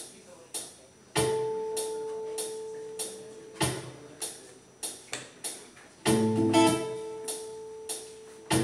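Acoustic guitar opening a cumbia over a steady percussive beat, a sharp strike about every half second. A held note rings out about a second in, and fuller chords come in about six seconds in.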